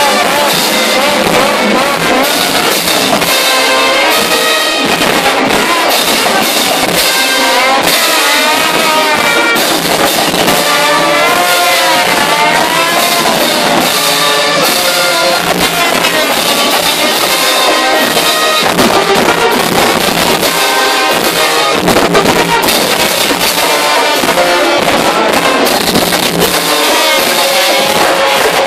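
Brass marching band playing loud, close up: trombones, sousaphone and saxophone carrying bending, sliding horn lines over steady drum kit and bass drum beats.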